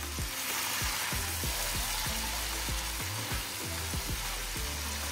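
Onion-tomato gravy sizzling steadily in a hot non-stick frying pan with water just added, a wooden spatula stirring it through. Background music with a steady beat plays underneath.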